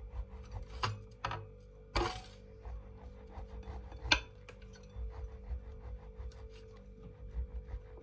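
A knife sawing through a seeded bagel on a ceramic plate, with soft rasping and a few clinks and knocks, the sharpest about four seconds in. Soft background music underneath.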